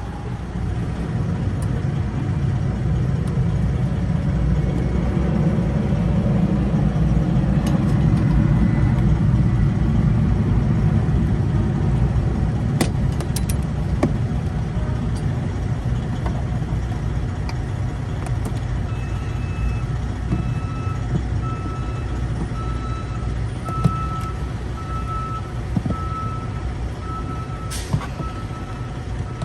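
Steady low rumble of an idling truck engine, swelling a little through the middle, with a few sharp clicks as plastic dash trim clips are worked loose. From about two-thirds through, a reversing alarm beeps about once a second.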